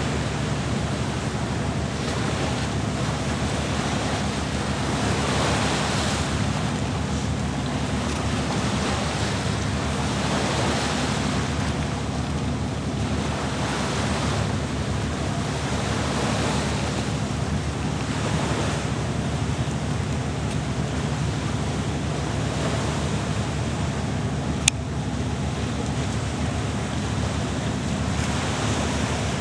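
Schooner under sail: wind buffeting the microphone over the rush of water along the hull, swelling and easing every few seconds. One sharp click near the end.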